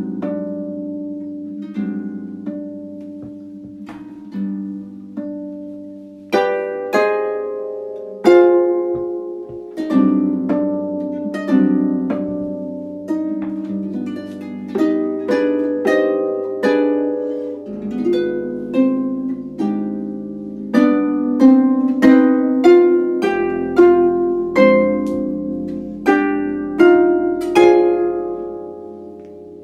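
Solo music on an Erard Gothic double-action pedal harp: plucked notes and chords ringing and fading, played softly at first and louder from about six seconds in.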